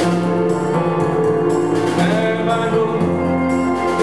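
Music: sustained instrumental chords whose notes change about once a second.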